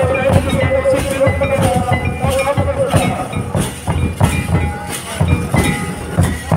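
Live folk dance music: drums beating a steady rhythm, with a held, wavering melody note over them in the first half, and crowd voices in the background.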